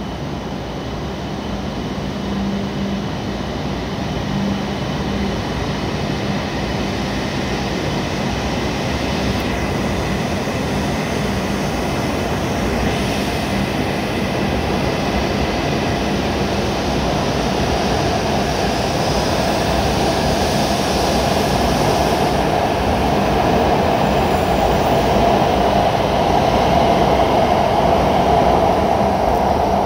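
W7 series Shinkansen trainset departing, its running noise growing steadily louder as it picks up speed, with a hum in the mid range building over the second half.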